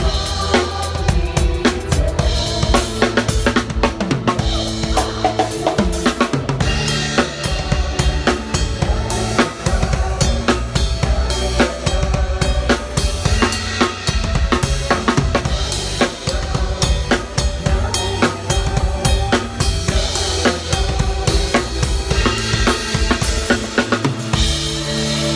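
Drum kit played along to a Thai pop backing track: a driving beat of kick and snare with cymbals over the recorded song. About a second before the end the drumming stops and held notes of the track carry on.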